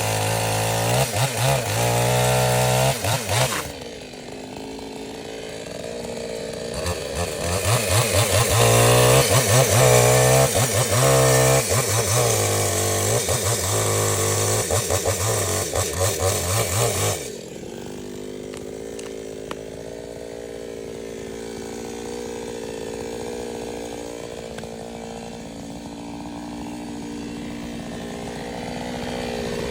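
Chainsaw cutting wood at high revs, its pitch wavering under load. It drops back about four seconds in, then cuts again until about seventeen seconds in, when it falls to a steady, much quieter idle.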